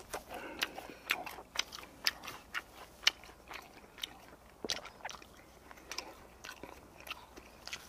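Chewing a mouthful of food, with irregular sharp wet clicks and smacks from the mouth.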